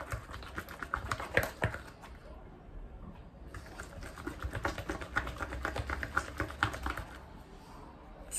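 A wooden stick stirring sticky homemade slime in a plastic bowl: a fast, uneven run of wet clicks and taps, pausing briefly about two seconds in.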